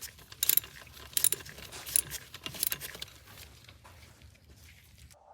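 Ratchet wrench working bolts on a Ford-O-Matic automatic transmission being taken apart: short clicking strokes about every three-quarters of a second, with metallic clinks, fading out after about three seconds.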